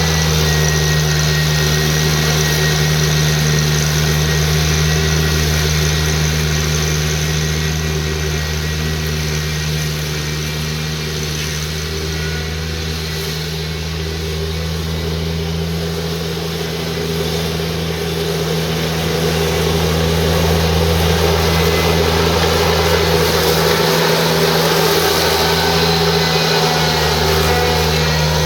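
The 31 hp liquid-cooled Daihatsu engine of an Exmark Lazer Z 72-inch XP zero-turn mower running steadily as it cuts through thick, tall grass without bogging down. It goes a little quieter in the middle and then comes back up.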